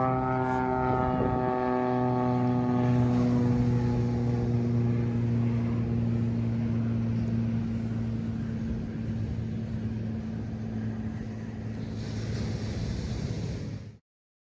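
Small propeller airplane flying over, its engine drone falling slightly in pitch and fading as it moves away, over a hiss of wind and surf. The sound cuts off suddenly near the end.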